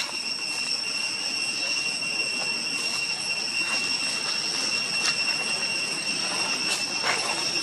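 Steady high-pitched insect drone over an even rustling hiss, with a few soft crackles from dry leaves about five and nearly seven seconds in.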